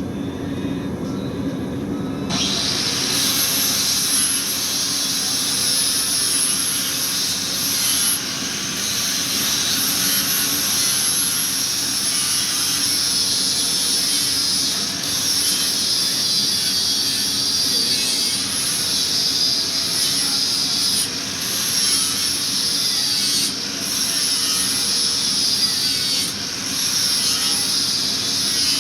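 Grinder grinding a freshly forged steel part for a forge's air tube: a loud, harsh, high hiss with a wavering whine that starts about two seconds in, dipping briefly now and then.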